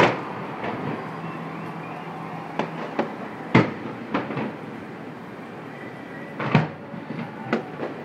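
Fireworks shells bursting: a run of sharp bangs at irregular intervals, each with a short echoing tail, the loudest right at the start, about three and a half seconds in and about six and a half seconds in, over a steady background rumble.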